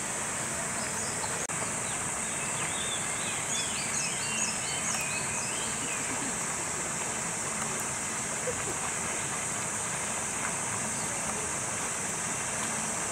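A bird calling a quick run of short, high chirps from about a second in until about six seconds in, over a steady high-pitched hiss.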